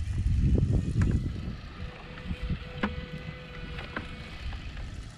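Shallow, muddy canal water sloshing and swishing as a shrimp push net on a bamboo pole is shoved through it, loudest in the first second and a half, with a few scattered clicks.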